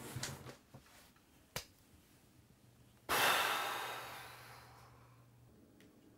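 A man sighing in exasperation. A short breath comes at the start, then a single click. About three seconds in comes a long, loud exhale through pursed lips that begins suddenly and fades over about two seconds.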